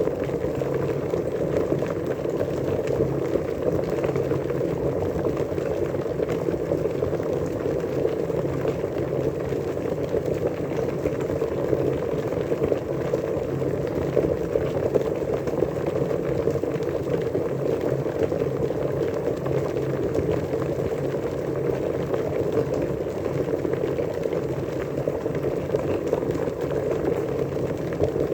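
Water boiling, a steady dense bubbling that holds even without any change.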